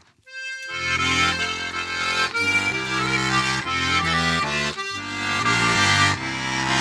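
Accordion playing an instrumental interlude in traditional Alpine folk style: after a brief pause and a single held note, it plays full sustained chords over a stepping bass line.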